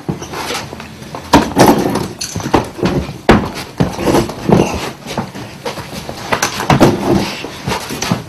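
A run of irregular thuds and knocks, some close together and some a second or more apart, with short voice-like sounds between them.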